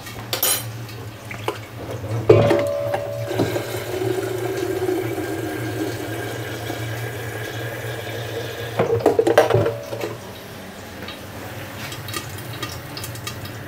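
Tap water running into an electric kettle in a steel sink for about six seconds, then shut off, followed by a few knocks and clatters.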